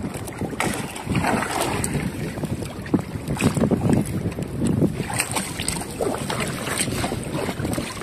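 Choppy sea water splashing and sloshing against a small boat's hull and around a man swimming beside it, with wind buffeting the microphone.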